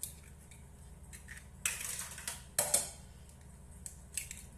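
Eggs being cracked against a mixing bowl and tipped in: a few sharp knocks and brief clatters of shell on the bowl.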